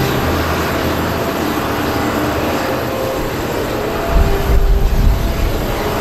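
A steady roar of wind in a blizzard, with gusts buffeting the microphone in uneven low thumps about four to five seconds in.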